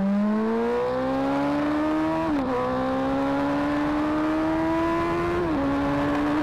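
Suzuki Hayabusa's inline-four engine under hard acceleration, heard from the rider's seat: its pitch climbs steadily, drops at two quick upshifts about two and a half and five and a half seconds in, and climbs again after each.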